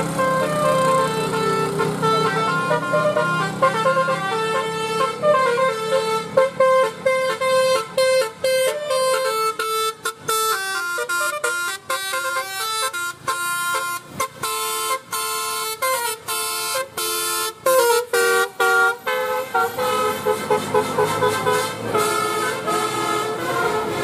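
Basuri multi-tone 'telolet' bus horn playing a melody. Held notes at first, then a run of quick choppy notes from about six to nineteen seconds in, then held notes again.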